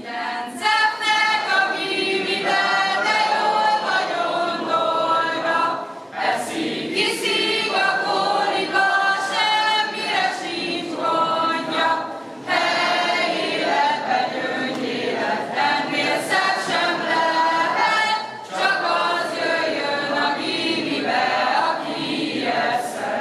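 Mixed youth choir of girls and boys singing a cappella, with short breaks between phrases about every six seconds.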